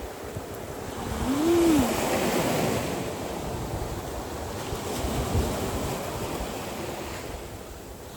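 Sea waves breaking on a beach with wind: one wave surges up about a second in and then washes out, fading gradually. A short hummed note that rises and falls is heard over it about a second and a half in.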